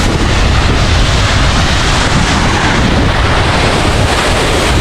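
Monsoon-swollen waterfall rushing close by: a loud, steady roar of falling water with a heavy low rumble.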